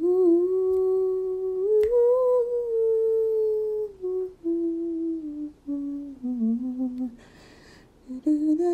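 A lone voice humming a slow wordless tune in long held notes that step up and down. It breaks off briefly near the end and then resumes.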